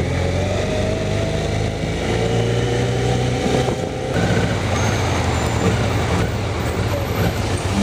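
Kawasaki ZZR400N inline-four motorcycle engine running steadily at low speed in slow traffic, with a faint whine rising slowly in pitch over the first few seconds.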